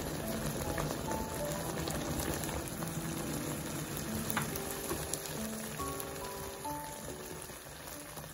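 Cream pasta sauce bubbling and simmering in a pan, a steady crackly bubbling as the sauce reduces around the noodles. Light background music with short melody notes plays over it.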